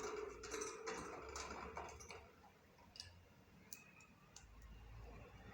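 Budgerigar chattering: a scratchy warble with clicks for about the first two seconds, then fainter scattered clicks.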